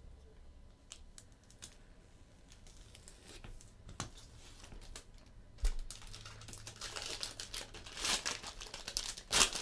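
A trading-card box topper's plastic wrapper being torn open and crinkled. Small clicks and a knock come first, then crinkling that grows louder through the second half.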